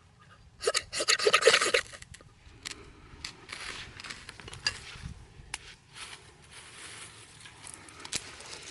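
Hand-worked wood being rasped and scraped: a loud burst of quick rasping strokes about half a second in, then lighter scrapes, rustles and small clicks.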